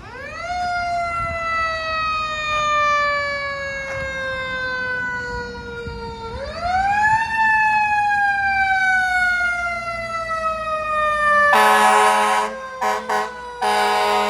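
Fire engine siren wailing: it rises quickly, falls slowly for several seconds, rises again and falls slowly. Near the end the fire engine's air horn blasts several short times and then once longer, louder than the siren.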